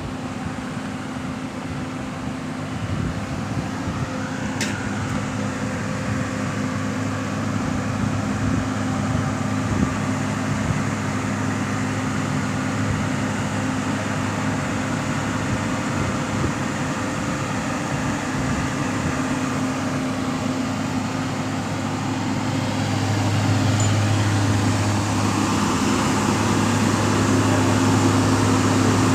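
Machinery running with a steady hum, a single sharp click about four and a half seconds in, and growing louder about 23 seconds in.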